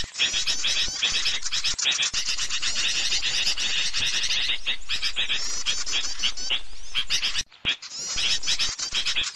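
Bird-lure recording of small songbirds chirping and twittering in a dense, rapid run of high-pitched calls, with a brief break about seven and a half seconds in.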